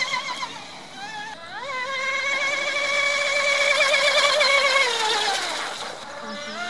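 RC hydroplane's 600-watt electric motor and propeller whining at high speed, the pitch wobbling. The whine dips and climbs back about a second and a half in, then falls away about five seconds in and climbs again near the end.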